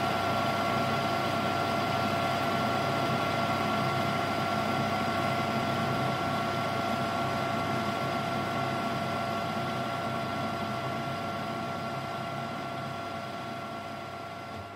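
Metal lathe running, its chuck spinning steadily with a constant whine from the motor and gearing. It fades out gradually over the last few seconds.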